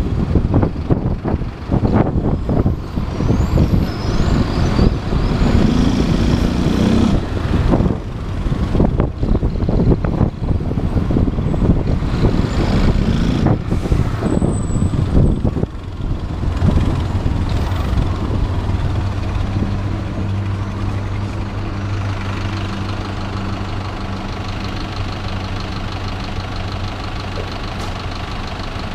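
Motorcycle riding through city traffic with wind buffeting the microphone; a little over halfway through it slows and settles into a steady idle.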